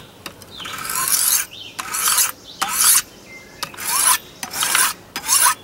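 Steel fillet knife blade drawn across the stone of a TriHone bench sharpener, being sharpened: about six scraping strokes, roughly one a second, each a bright rasping hiss with a short pause between.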